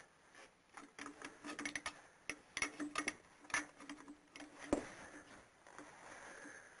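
Ratchet wrench clicking in irregular runs as the crankshaft pulley bolt is turned back a full turn, part of the manual's torque-then-loosen bolt sequence, with one sharper metal knock a little before the end.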